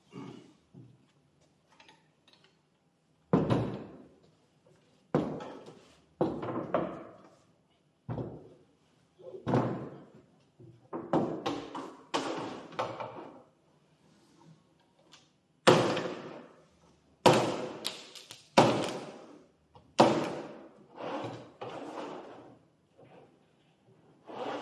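NLBFOU 18-inch flooring and siding cutter being handled and worked: a series of about a dozen sharp clunks and thuds as the machine is moved on the table, a wood-look flooring plank is set in and the shear blade comes down to cut it. The loudest knocks come in the second half.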